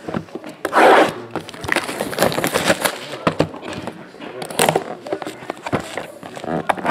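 Cardboard boxes of Topps Museum Collection football cards being handled and opened: a run of clicks, knocks and rustles, with louder scraping bursts about a second in and again near five seconds.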